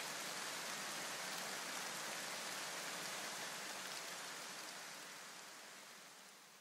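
Electronic background music thinned to a steady hissing noise wash, with no beat or melody, fading out over the last couple of seconds.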